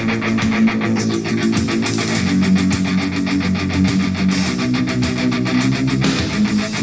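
Guitar-driven rock song playing loudly through a Sony SRS-XB20 portable Bluetooth speaker, with a steady beat.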